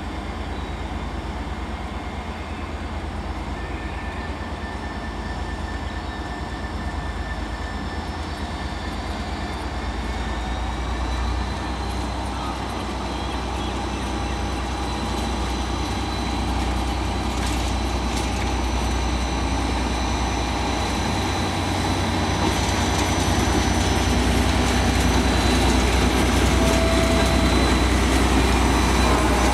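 Class 57 diesel locomotive's EMD two-stroke V12 engine running as it hauls a rake of coaches slowly past, with a deep steady rumble and a thin high whine above it, growing steadily louder as it draws near.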